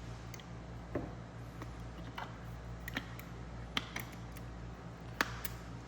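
Scattered small clicks and taps of manual coffee grinder parts being handled and fitted as the burr is seated, over a steady low hum.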